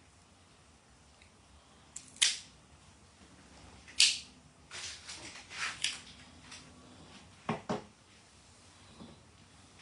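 Objects being handled and moved: a few short, sharp scraping rustles, the loudest about two and four seconds in, then two quick knocks about seven and a half seconds in.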